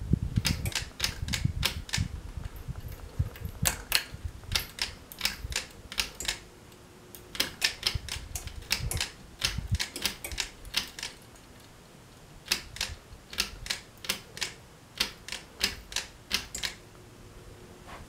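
Sharp clicks in quick irregular runs, with short pauses between the runs, from a Hunter Studio Series ceiling fan, its pull-chain switches and chain.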